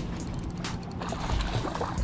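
Daiwa Fuego LT 4000 spinning reel being cranked against a hooked striped bass, its gears whirring with scattered sharp clicks.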